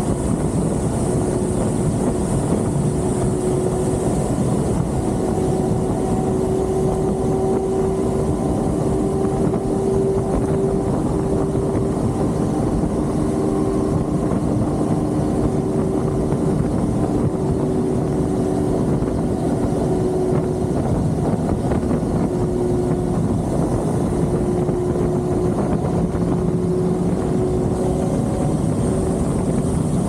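Benelli 502C's parallel-twin engine running at a steady cruising speed on the move, its note holding nearly even, with wind rush over the microphone.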